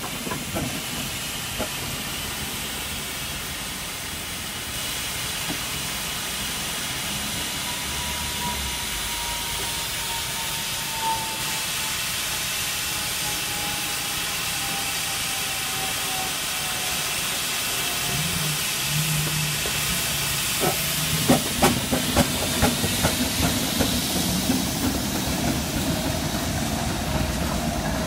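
Wallis & Steevens steam traction engine hissing steam steadily. About three-quarters of the way through it moves off, and a run of sharp exhaust chuffs, about two a second, comes over the hiss.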